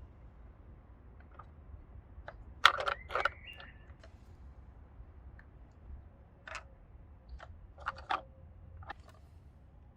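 Scattered sharp clicks and crackles over a faint low hum, with the loudest cluster about three seconds in and a few more later.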